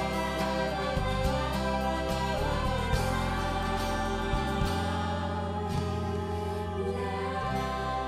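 Mandarin pop theme song playing over the end credits: a singer's voice over instrumental backing, the singing giving way to the backing after about three seconds.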